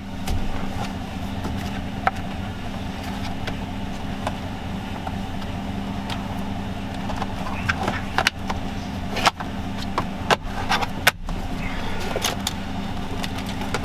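Steady low hum inside a Chevrolet pickup cab, with scattered sharp clicks and knocks as plastic dash and steering-column trim is handled and snapped back together.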